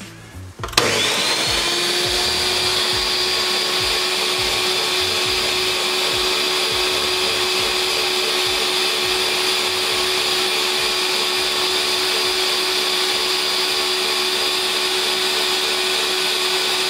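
Ninja Professional 1500-watt countertop blender starting up about a second in, its motor whine rising quickly to full speed, then running steadily at high speed as it purées roasted chiles, tomatoes and water into a salsa.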